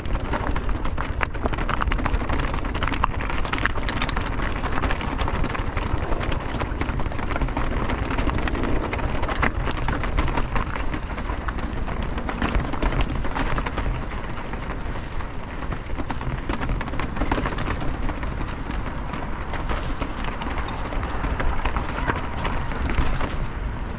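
Mountain bike rattling down a rough rocky trail: tyres rolling over rock with many knocks and clatters from the bike, over a steady rush of ride noise.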